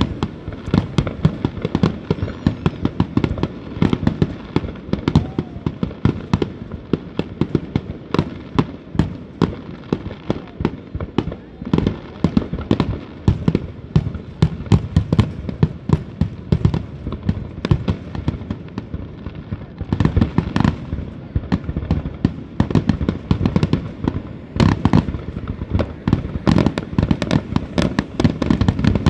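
Aerial fireworks shells bursting in a rapid, unbroken barrage of bangs and crackles, many every second.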